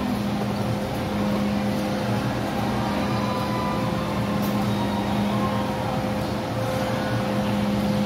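MTR Disneyland Resort Line M-train standing at the platform, its onboard equipment giving a steady hum with a low tone and a fainter higher whine.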